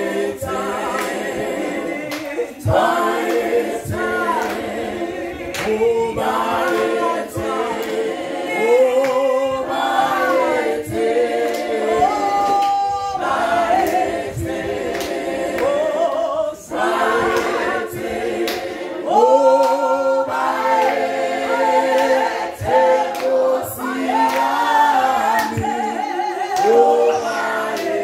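A small praise team of girls' voices and a man's voice singing a Zulu gospel praise song together a cappella, in harmony.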